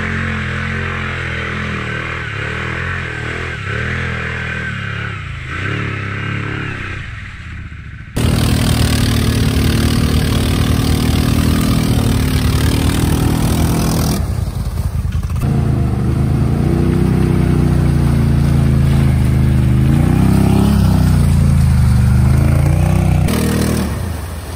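Vehicle engine revving hard under load, its pitch rising and falling over and over, as the vehicle works its way through deep sawdust. About eight seconds in, the engine sound suddenly becomes much louder.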